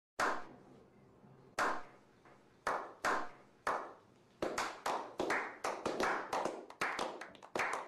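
A handful of people clapping a slow clap: single claps about a second apart that quicken and crowd together into steady applause from about halfway through.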